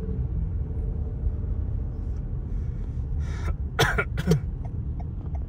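A person clears their throat with two sharp bursts about four seconds in, over the steady low rumble inside a moving car's cabin.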